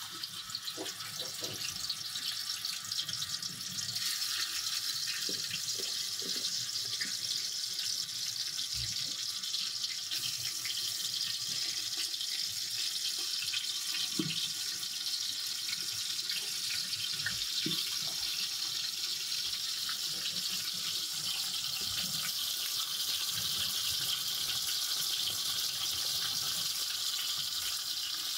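Steady hiss of food cooking in a large aluminium pot over a burner, growing louder about four seconds in, with a few soft knocks as food and utensils are handled.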